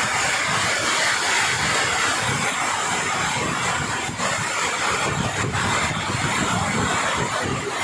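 Heavy rain pouring down in strong, gusting wind, with the wind buffeting the microphone in a rumble.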